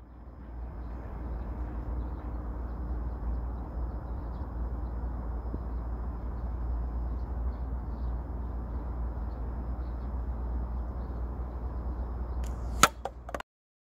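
Steady low wind rumble and hiss on the microphone, then near the end a sharp crack with a few lighter clicks around it as a slingshot ball strikes the plastic water bottle target and knocks it over; the sound cuts off suddenly just after.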